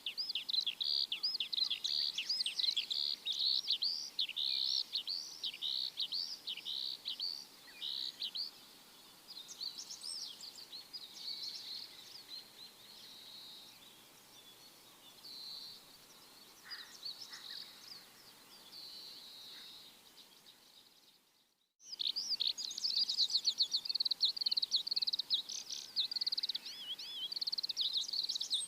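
Small birds chirping in quick, high, repeated notes. The chirping thins out and gets quieter through the middle, cuts to silence for a moment about 21 seconds in, then comes back dense and loud.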